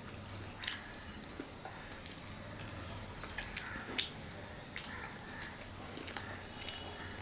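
A man chewing and biting roti with mutton curry, eaten by hand: wet chewing and mouth clicks, with two sharper smacks, about a second in and about four seconds in.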